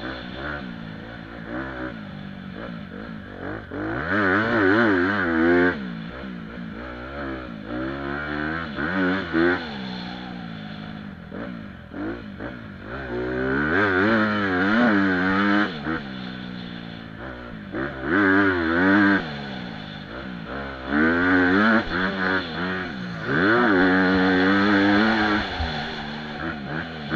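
Honda CRF250 dirt bike's four-stroke single-cylinder engine, heard close up from on the bike, revving hard and easing off again and again as the throttle is opened and shut, its pitch climbing and dropping. It has five loud surges, the longest about two seconds each, with lower running between them.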